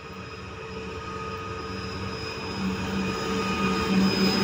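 2TE116 twin-section diesel locomotive hauling a freight train, its diesel engines working under load with a steady hum and a thin higher whine. The sound grows steadily louder as the locomotive comes up alongside.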